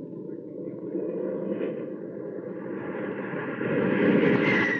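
Radio-drama sound effect of an aircraft engine drone as a fighter makes a pass at another plane. The drone is steady, then swells louder about three and a half seconds in, with a falling whine near the end.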